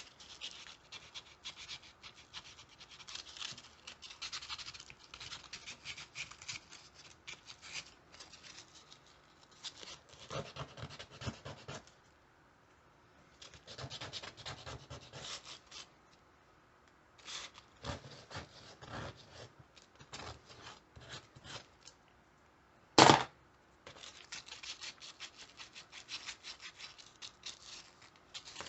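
Popsicle-stick wood being hand-sanded with a small square of sandpaper, rocked to round off a corner: bursts of quick rasping strokes with short pauses between them. One sharp knock, late on.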